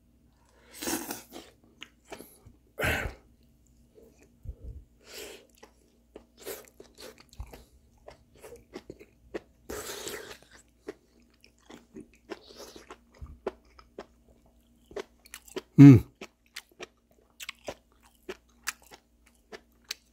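A person chewing steamed beef tripe close to the microphone: irregular wet mouth smacks and small clicks. A few louder noisy bursts come in between, and a short low vocal sound about sixteen seconds in is the loudest moment.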